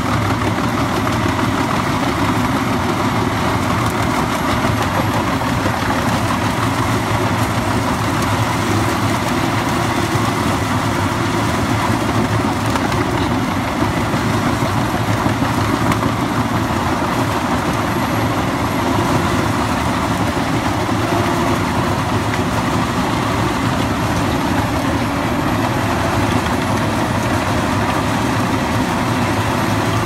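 Engine of a large wood chipper running steadily, a continuous even drone with no distinct strikes or bursts.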